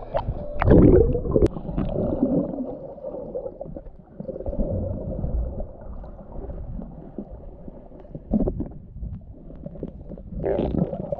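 Muffled underwater gurgling and bubbling through a camera held under the water, with a few dull knocks.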